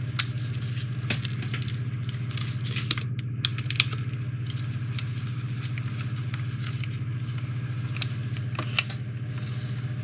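Small clicks and rattles of AAA batteries and their plastic blister pack being handled, many in the first four seconds and two more near the end, over a steady low hum.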